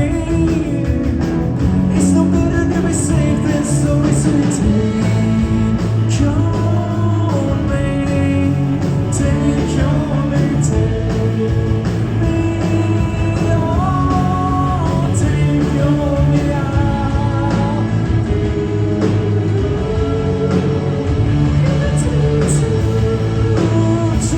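A rock-style song with a singing voice, playing steadily throughout.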